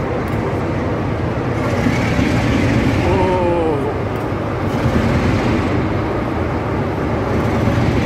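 Diesel-hauled passenger train rolling past along a platform: maroon coaches between two diesel locomotives, with a steady rumble of wheels and engine and a brief falling pitched sound about three seconds in.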